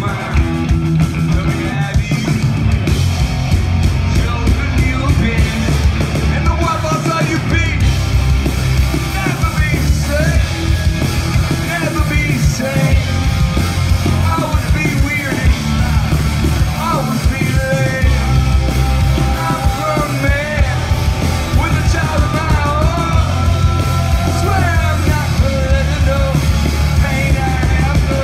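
Live rock band playing loud through the PA: electric guitars, bass and a driving drum beat, with a voice singing over the band.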